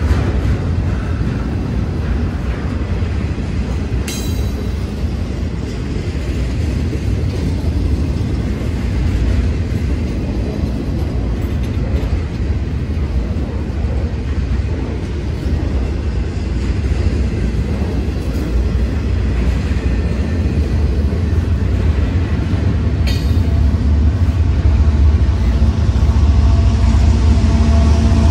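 Double-stack intermodal freight train's well cars rolling through a grade crossing: a steady low rumble of steel wheels on rail. Near the end it grows louder and a diesel locomotive's engine drone comes in as the locomotive approaches.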